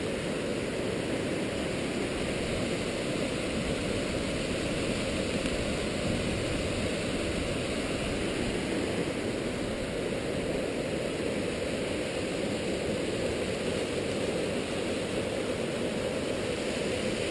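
A fast, rocky mountain stream rushing over boulders in white water: a steady, even rush of water.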